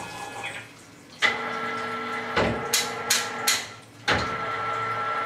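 CNC lathe running, with a steady machine whine that starts abruptly about a second in. Near the middle there is a heavy clunk followed by three sharp clicks, then a short lull, and then the whine starts up again.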